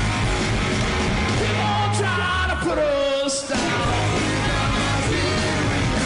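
Live rock band playing loud with distorted electric guitar, bass and drums, and a singer yelling. Around the middle the low end drops out for about a second under a bending, held vocal line, then the full band comes back in.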